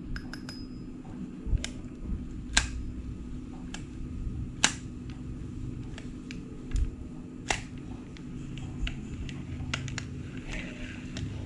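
Scattered sharp clicks and taps from handling a new Shimano Sienna 1000 FE spinning reel, a few of them louder, over a low steady hum.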